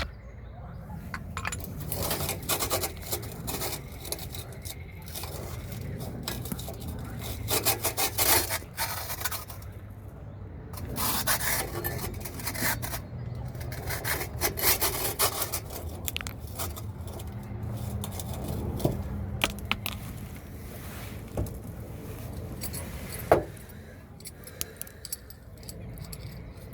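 Irregular scraping and rubbing noises over a steady low hum, with one sharp knock a few seconds before the end.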